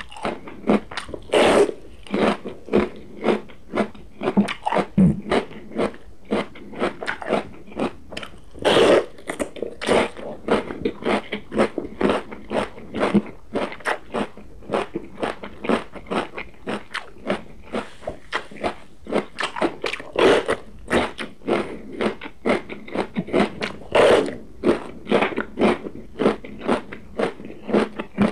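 Close-miked biting and chewing of a raw green pepper: a few louder crisp bites among a steady run of crunchy chews, two or three a second.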